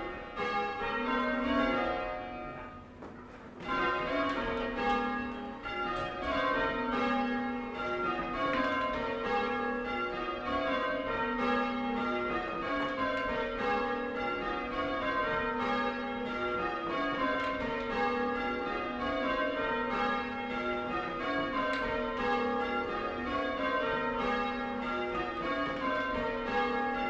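A ring of six church bells cast in 1720 by Abraham Rudhall II, tenor about 10 cwt in A flat, rung full-circle in rounds, each bell striking in turn from treble down to tenor in a steady repeating cascade. The ringing dips briefly about three seconds in before carrying on unbroken.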